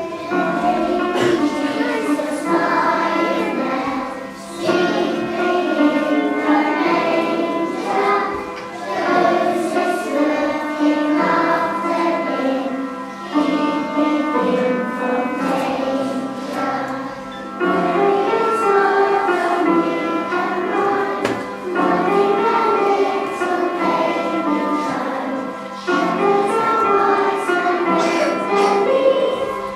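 Children's choir singing a song with instrumental accompaniment, in phrases of a few seconds each.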